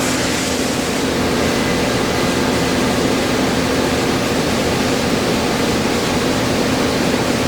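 Steady mechanical noise with a low hum, even in level throughout.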